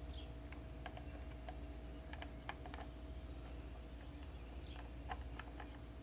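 Faint, irregular clicks and taps as a new Fel-Pro rubber valve cover gasket is pressed by hand into the groove of a plastic valve cover, with a steady low hum behind.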